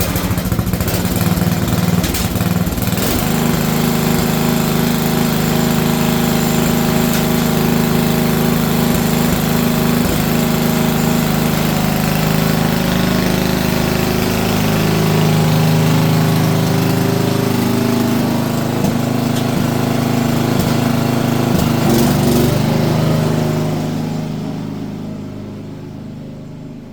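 Small lawn tractor engine running steadily just after starting, getting quieter in the last few seconds.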